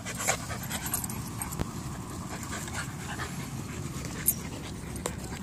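A Boston Terrier puppy and another puppy play-fighting: scuffling and dog sounds during close-up wrestling, with one sharp knock about four seconds in.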